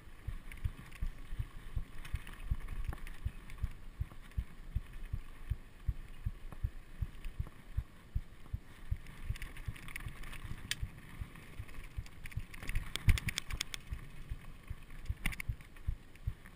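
Mountain bike riding over rocky dirt singletrack, heard through a GoPro mounted on the rider: a constant run of low thumps and knocks as the bike jolts over rocks, over a steady hiss of tyres on gravel. About thirteen seconds in, a quick cluster of sharp clicks and rattles is the loudest moment.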